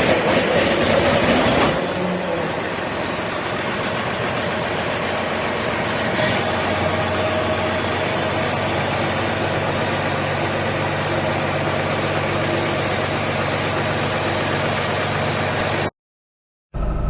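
John Deere 4840's six-cylinder turbocharged diesel, freshly overhauled, running. It is louder for the first couple of seconds, then settles to a steady idle. The sound cuts off abruptly near the end.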